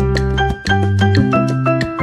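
Salsa-style background music with a steady beat and a bass line.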